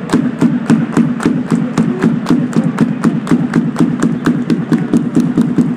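Ice hockey supporters' crowd chanting together over a fast, steady beat of hits, about four a second.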